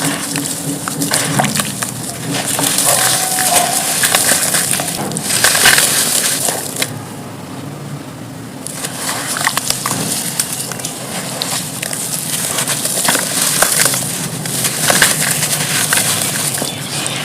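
Dry pure charcoal pieces being crumbled and crushed: a dense, crisp crunching and crackling that eases off for a couple of seconds in the middle before picking up again.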